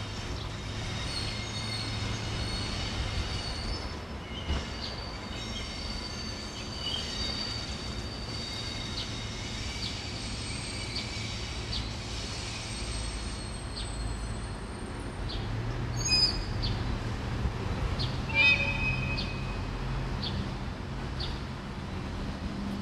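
An EH200 electric locomotive moving slowly through the depot tracks, its wheels squealing on the curves in several high steady tones, over a low steady hum. In the second half the squeal gives way to scattered clicks and two louder clanks.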